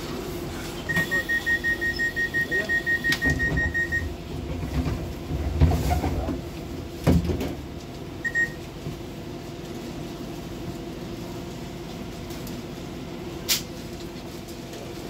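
Docklands Light Railway train's door-closing warning: a rapid high beeping, about five beeps a second for some three seconds. The sliding doors then rumble shut and close with a thud, followed by one short beep, over the train's steady hum.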